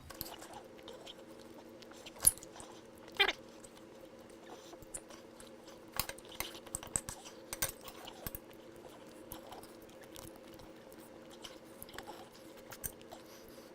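A person chewing steak, with scattered light clicks and knocks over a steady low hum; two sharper, louder clicks come a couple of seconds in.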